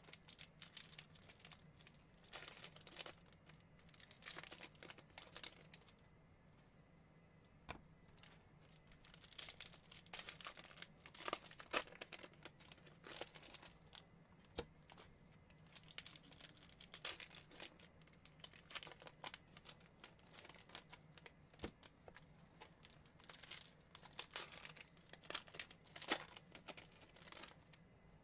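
Plastic-foil wrappers of 2021 Bowman baseball card packs being torn open and crinkled by hand, in irregular bursts with short pauses between packs.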